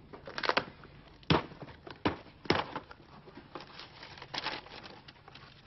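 A cardboard box being opened by hand: a series of short, sharp rips and scrapes as the tape and flaps are pulled back, then paper rustling as a sheet is lifted out.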